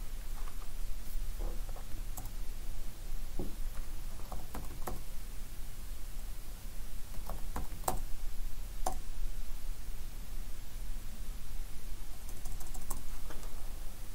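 A few sparse taps on a computer keyboard at irregular intervals, some in close pairs, over a steady low hum.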